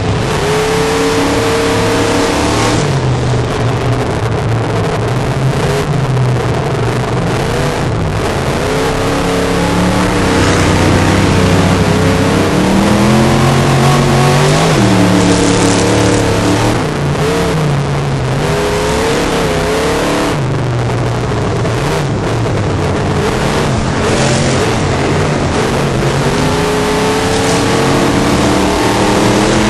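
Off-road autocross race vehicle's engine at racing pace, its pitch climbing and dropping back again and again as it accelerates, shifts and lifts through the turns, over a constant rough noise of tyres and dirt.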